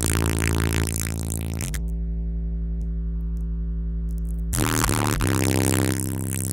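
Bass-heavy music played loud through two 18-inch dual 1-ohm subwoofers in a car. In the middle the rest of the music drops away for a few seconds, leaving a long held deep bass note, and the full mix comes back near the end.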